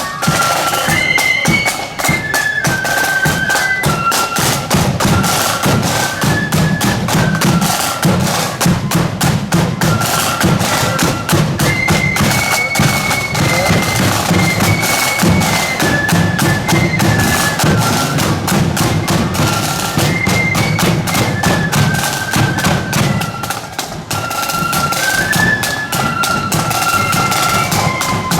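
Marching band playing a tune on flutes over rapid snare drumming and bass drum, the melody moving in short held notes.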